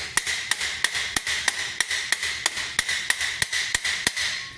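A hammer peening steel rivets on a steel great helm: steady, even blows at about three a second, with the helm's steel ringing between them. The hammering stops shortly before the end.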